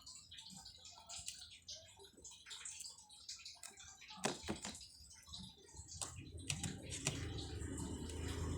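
Faint scattered clicks and taps of someone eating a meal of rice and fried dried fish. A low hum grows in near the end.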